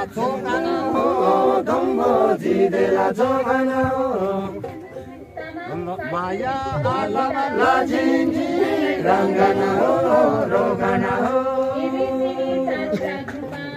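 A group of voices singing a chant-like song together without instruments. The song moves in phrases, with a short drop in loudness about five seconds in.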